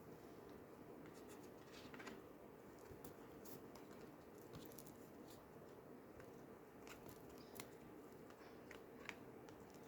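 Faint, scattered clicks and light rustles of oracle cards being handled and laid down, over a quiet steady room background.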